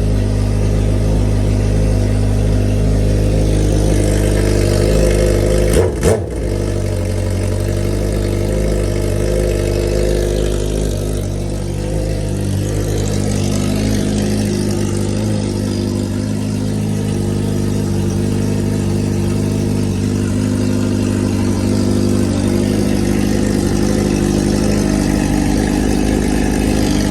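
Suzuki GSX-R1000's inline four-cylinder engine idling steadily, with one brief louder burst about six seconds in.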